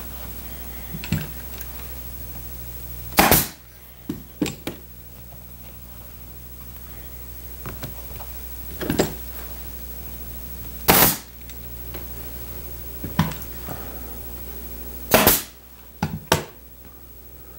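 Staple gun driving staples through upholstery fabric into a wooden chair frame. Three loud, sharp shots come several seconds apart, with softer clicks in between.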